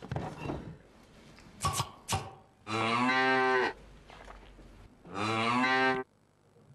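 Two long, deep moos, each about a second long, the second one starting about two seconds after the first. They follow two sharp knocks about two seconds in.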